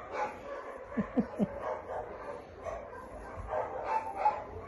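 Dogs barking, with a quick run of three short barks about a second in.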